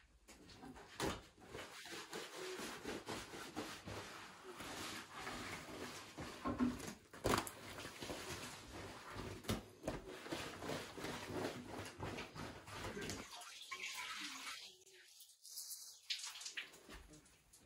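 A cloth cover rustling and sliding as it is drawn back off rows of shaped bread dough, with indistinct voices behind it. About 13 seconds in the sound drops away abruptly to near quiet.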